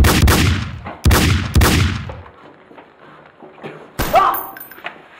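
Gunshot sound effects: a run of loud shots, each with a long echoing tail, two close together at the start and two more a second or so later, then a single shot about four seconds in with a brief cry over it.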